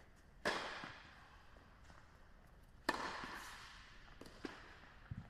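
Two sharp strikes of a tennis racket on the ball, about half a second and about three seconds in, each ringing on in the echo of a large hall, followed by a few fainter knocks near the end.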